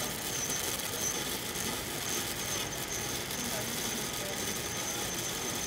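Stick-welding (SMAW) arc on steel pipe, crackling and hissing steadily as a 1/8-inch electrode runs the downhill root pass.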